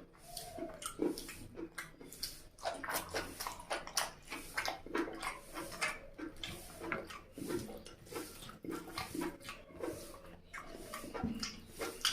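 A person chewing and smacking a mouthful of chicken curry and rice close to the microphone: a continuous run of wet mouth clicks and smacks.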